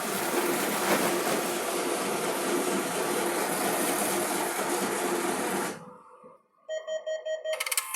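ATM cash dispenser mechanism whirring steadily as it draws and feeds banknotes during a cash withdrawal, stopping about six seconds in. Near the end the machine gives a quick run of electronic beeps, followed by mechanical clicking and rattling.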